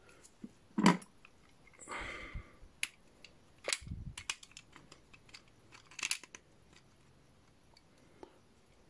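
Small screws and plastic action-figure parts being handled and fitted together: scattered light clicks and taps, with a brief scraping rustle about two seconds in.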